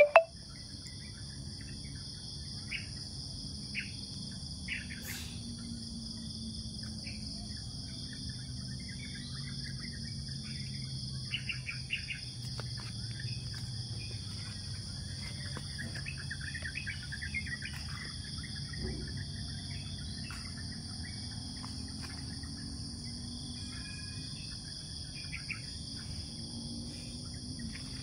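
Steady high-pitched insect chorus with scattered short bird chirps over it; a single sharp click at the very start.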